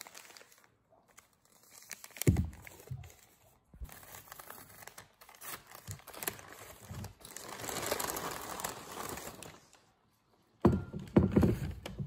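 Printed paper wrapping crinkling and rustling as it is unrolled from a wine bottle. A thump comes about two seconds in, and a few more knocks come near the end.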